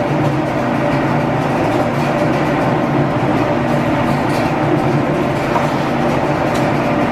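Gould & Eberhardt 32-inch metal shaper running off the shop's line shaft, its ram stroking back and forth while a shear tool takes a light facing cut across a steam-engine crosshead. It makes a steady mechanical clatter of gears and belts, with a few faint clicks in the second half.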